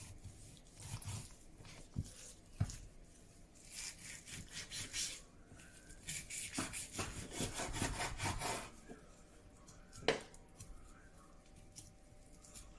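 Chef's knife cutting through raw chicken on a wooden cutting board: a run of sawing strokes through skin and meat in the middle, with a few sharp knocks of the blade against the board.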